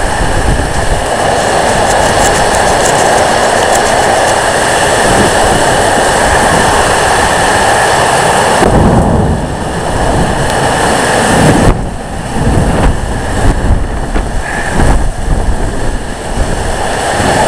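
Heavy rain and strong storm wind, a loud steady rushing noise. About nine seconds in the hiss drops and the sound turns uneven, with several sharp low thumps of wind buffeting the microphone.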